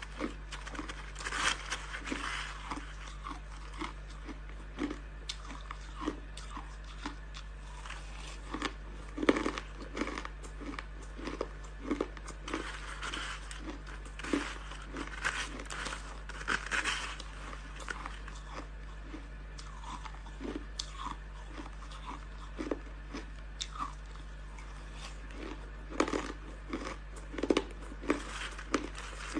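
Crushed ice crunching as it is scooped with a metal spoon and chewed, a long run of short crisp crunches at irregular spacing, coming in clusters, over a faint steady low hum.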